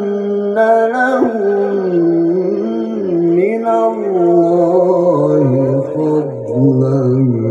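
A male qari reciting the Quran in long, ornamented held notes through a loudspeaker system, the melody dropping to a lower register about five seconds in.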